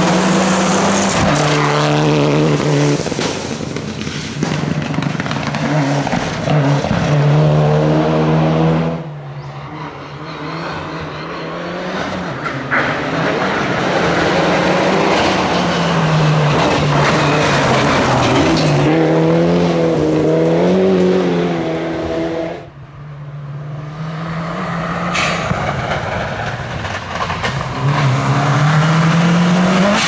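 Rally cars at full speed on a gravel stage, three passes cut together: Mitsubishi Lancer Evolution and Subaru Impreza WRX turbocharged four-cylinder engines revving up and down through the gears, with tyres skidding and spraying gravel. Sudden cuts between passes about nine and twenty-three seconds in.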